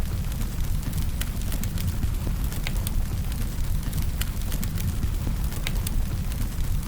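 Firewood burning: a steady low rumble of the fire with irregular sharp crackles and pops from the burning wood, roughly one or two a second.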